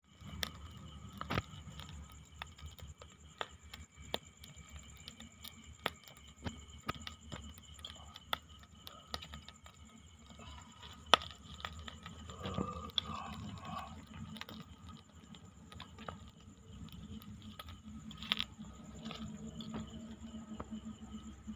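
Small wood fire crackling in scattered sharp clicks, over a steady high trill of night insects.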